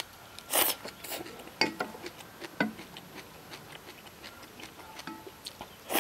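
Someone slurping rice noodles: two loud slurps, one about half a second in and one at the end, with light clicks of chopsticks against a stainless steel bowl between them.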